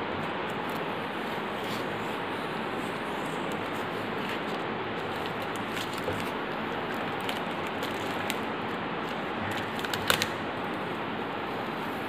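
Tape being peeled off the edges of a paper sheet, giving a few scattered soft clicks and a short cluster of louder clicks about ten seconds in, over a steady hiss.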